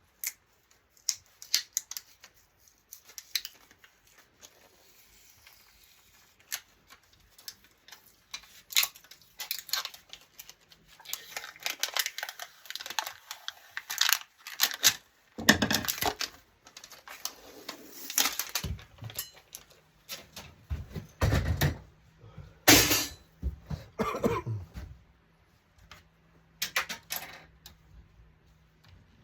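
Metal and plastic parts of an LCD monitor being handled and pulled apart: scattered clicks and clinks at first, turning into louder clattering with a few heavy knocks from about halfway.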